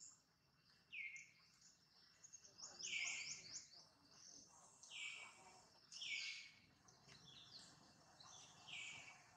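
Birds calling: a short call falling in pitch, repeated about every one to two seconds, with a quick run of high chirps about three seconds in.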